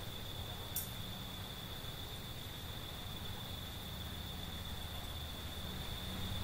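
Insects, likely crickets, making one steady high-pitched buzz over a low background rumble, with a single short click about a second in.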